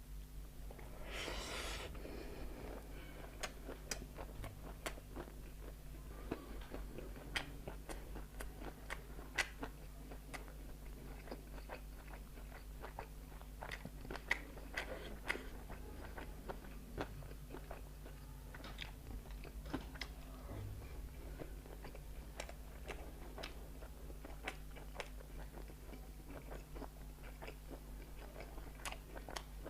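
Close-miked eating: chewing and biting with frequent short, sharp crunchy clicks, and a longer crunching burst about a second in.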